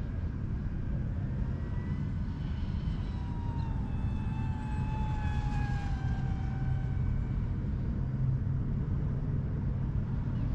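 Steady low outdoor rumble with the faint high whine of a DJI FPV drone's propellers, which sags slightly in pitch from about two seconds in and fades a few seconds later.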